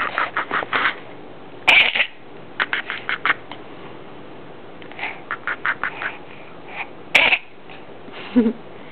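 Levi's weird noise: repeated short, quack-like pulses in quick bursts of several at a time, with pauses of a second or so between the bursts.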